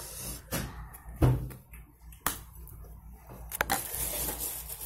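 Handling noises: scattered clicks and light knocks with some rustling as a small plastic toy figure is unhooked from its packaging fastening and handled beside a ceramic mug on a wooden table. The loudest knock comes about a second in.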